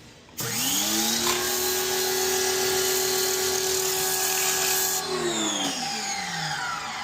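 A small high-speed power tool starts up, quickly reaches a steady high whine with a loud hiss and runs for about four seconds. The hiss then cuts off and the whine falls away as the tool spins down. It is most likely being used to clean dirt from the engine.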